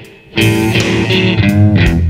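Stratocaster-style electric guitar playing a slow blues lead. After a short pause it comes in about half a second in, with a bent note gliding in pitch near the end.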